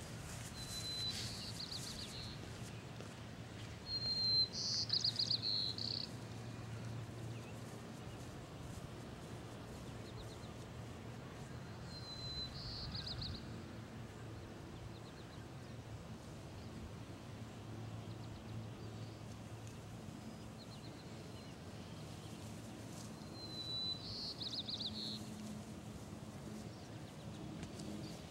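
A songbird singing short phrases four times, each a thin steady note followed by a fast trill, the loudest about four to six seconds in. Under it runs a steady low background hum.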